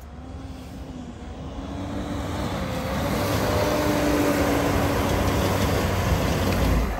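Mitsubishi L200 Triton pickup's engine pulling under load off-road, growing steadily louder for about three seconds and holding there before dropping off sharply near the end.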